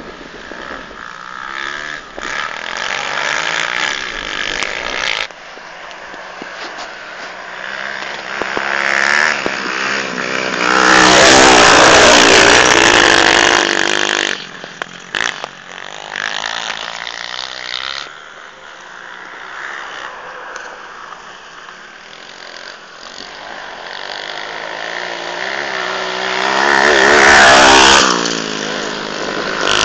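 Two pit bikes' small single-cylinder engines revving up and down as they race round a grass track. They are loudest as they pass close by about a third of the way in and again near the end, and fainter in between as they ride away.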